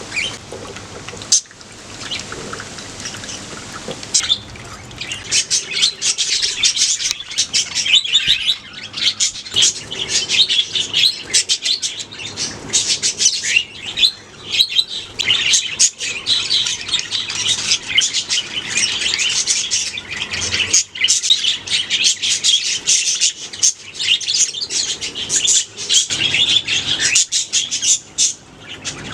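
A colony of budgerigars chirping and chattering at once, rapid high twittering calls that overlap. It is sparser for the first few seconds, then dense and unbroken.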